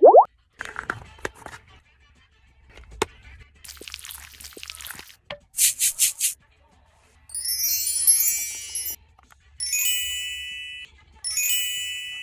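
A string of edited-in cartoon sound effects: a few clicks and short swishes, four quick high taps, then three sparkling chime twinkles, each ringing out for about a second.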